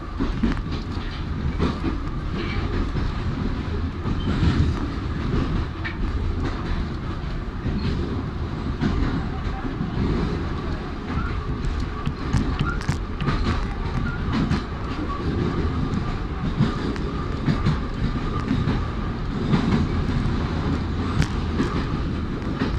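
Kyiv metro train running over a bridge, heard from inside the car: a steady rumble of wheels on rails with scattered clicks from the rail joints and a faint steady whine.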